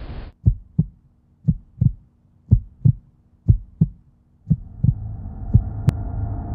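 Heartbeat sound effect: six paired lub-dub thumps, about one beat a second. Near the end a low, sustained ambient music drone fades in underneath.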